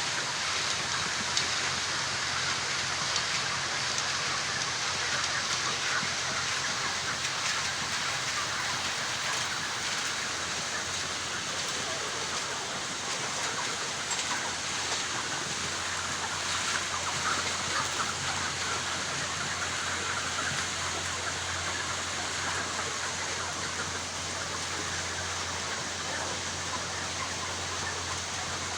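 A large flock of poultry-farm chickens calling at once, a dense continuous chatter, over a low steady hum that drops slightly in pitch about halfway through.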